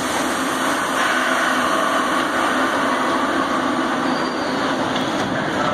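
MBTA Red Line subway car standing at the platform with its onboard equipment running: a steady hum and hiss before it pulls out.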